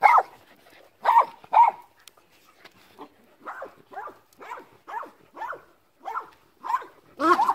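Dogs barking in short, high-pitched yaps: a few loud ones, then a steady run of fainter yaps about two a second, with a louder one near the end.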